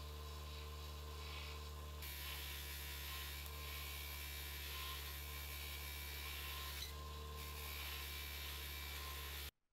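Bench polisher motor running steadily with its buffing wheel spinning. From about two seconds in, a coil spring held on a wooden stick is pressed against the wheel, adding a steady rubbing noise as the spring is polished. The sound cuts off suddenly near the end.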